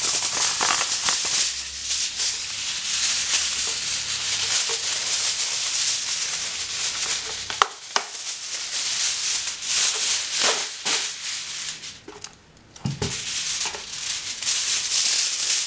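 Aluminium foil crinkling as a sheet is pulled off the roll, spread and pressed flat over a metal baking tray by hand, with a dull knock late on.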